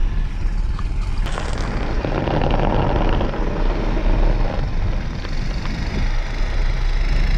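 Engine of a homemade snow vehicle, its new 20-horsepower motor, running as it drives over the snow, mixed with heavy wind rumble on the microphone. The sound changes abruptly about a second in.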